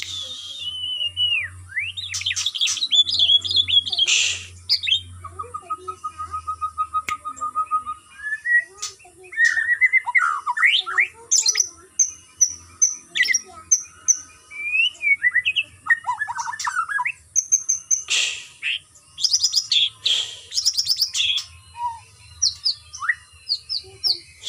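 White-rumped shama singing a long, varied song: whistled rising and falling phrases, sharp chirps and a steady trill of quickly repeated notes, with brief pauses between phrases.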